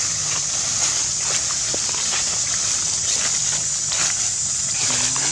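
A steady, high-pitched insect drone fills the forest, with scattered light crunches and rustles of dry leaf litter underfoot.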